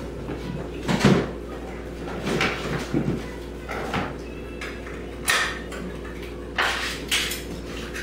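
Cat food dishes and containers being handled on a table as food is dished out: a series of irregular clinks, knocks and clatters, the loudest about a second in.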